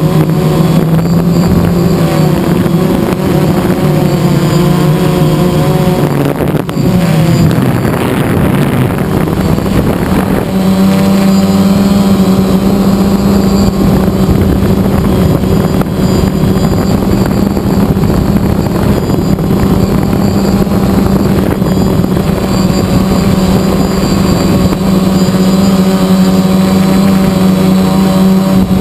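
Electric motors and propellers of a radio-controlled aircraft heard from on board, a steady loud hum with wind on the microphone. The pitch wavers and shifts between about six and ten seconds in, then holds higher and steady.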